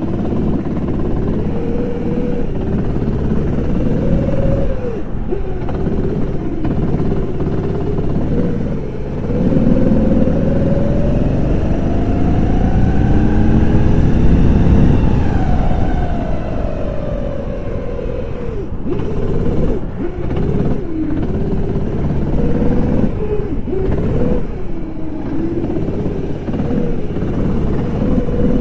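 Go-kart engine heard from on board the kart, its pitch rising and falling through the corners. Near the middle it climbs steadily for about six seconds along a straight, then drops away as the kart slows.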